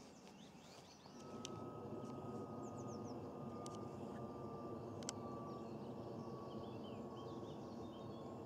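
A steady engine drone fades in about a second in and holds, with a faint whine that slowly drops in pitch. Small birds chirp over it, with a few light clicks.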